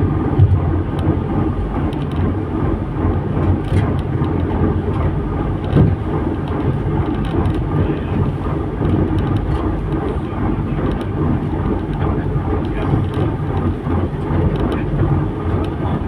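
Heavy rain: a steady, deep noise with faint scattered ticks.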